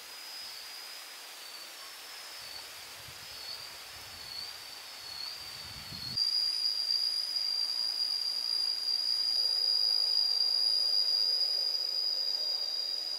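Cicadas droning: a high, steady whine that wavers slightly at first, then about six seconds in becomes louder and holds unbroken.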